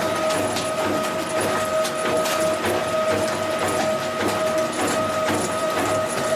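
QTJ4-25 semi-automatic concrete block machine running: a steady whine over a low hum, with irregular knocks and clatter.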